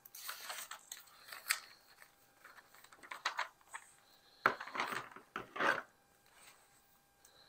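Glossy magazine pages rustling as they are turned and handled on a table, in several separate bursts, the loudest a little past the middle.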